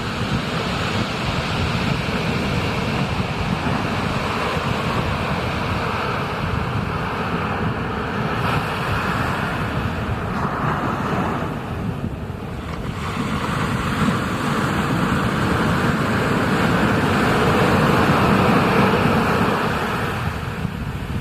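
Ocean surf and rushing water with wind buffeting the microphone. It is a steady rush that dips briefly a little past halfway, then swells louder.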